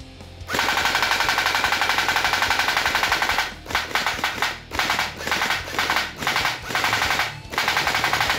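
Battery-powered QBZ-95 gel blaster firing full-auto, a rapid rattle of shots. One long burst of about three seconds comes first, then several shorter bursts.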